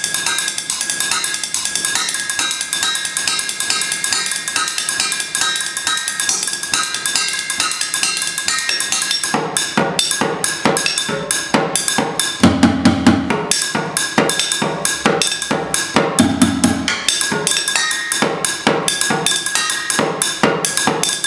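Improvised drumming on kitchen cookware: fast stick and hand strokes on metal cooking pots, bowls and pans, played as a rhythm. For the first several seconds a metal pot keeps ringing under the strokes. After that the hits are crisper and more spaced, with two short deep rolls in the middle.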